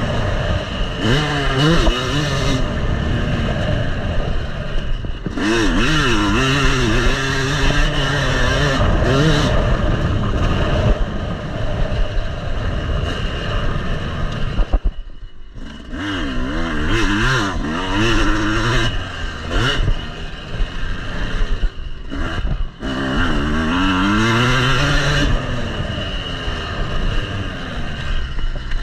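Yamaha motocross bike's engine revving up and down as it is ridden around a dirt track, the pitch climbing and falling again and again with the throttle and gear changes. About halfway through the throttle is shut off briefly and the engine note drops away before picking up again, with steady wind noise throughout.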